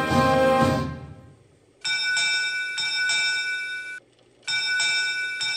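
Theme music fades out in the first second, then a ship's bell rings twice, each ring lasting about two seconds and stopping abruptly. Bells rung in pairs like this are the Navy arrival honors that announce someone coming aboard.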